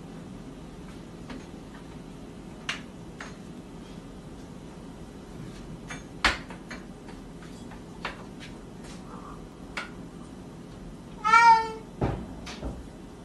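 A cat pawing at a door handle: scattered sharp clicks and knocks of the handle and door, the loudest about six seconds in. The cat gives one meow about eleven seconds in.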